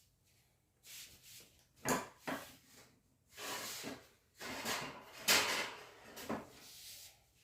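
Handling noise from pedestal fan parts: an irregular series of scrapes, rubs and knocks, the loudest about five seconds in.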